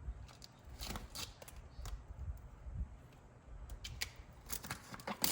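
Handling noises from working peel-and-stick backsplash tiles: irregular rustles and light clicks, thickening toward the end, over a low steady rumble.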